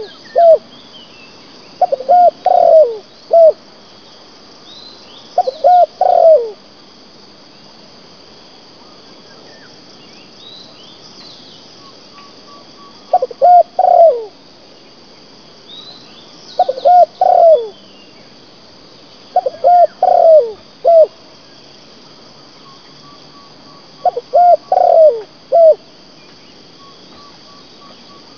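A spotted dove cooing in repeated phrases of three or four low, gliding coos, six phrases in all, with a long pause in the middle. Under it runs a steady high insect hum, with faint chirps from other birds.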